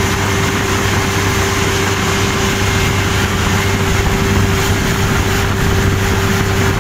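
Mahindra tractor's diesel engine running flat out at a steady pitch during a road race, heard from the driver's seat with a constant whine over the engine note.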